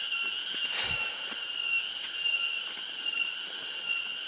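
Steady high-pitched drone of insects, with light footsteps on a stony path and one thump just under a second in.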